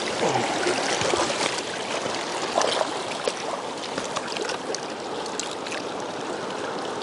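Fast, shallow river rapids rushing steadily, with a few brief splashy flecks over the even roar of the water.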